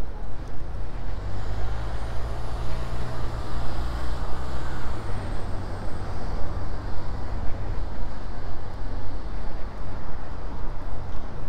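City street traffic, with a heavy road vehicle's engine running low and steady for several seconds in the middle before easing off.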